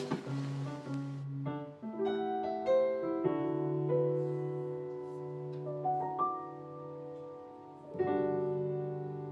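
Slow piano music: single notes and chords struck every half second to two seconds and left to ring. A soft rushing hiss underneath stops about a second in.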